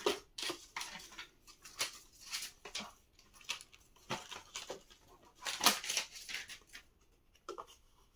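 Handling noises: a quick run of irregular rustles and scrapes, about a dozen short bursts, the loudest a little past halfway, stopping shortly before the end.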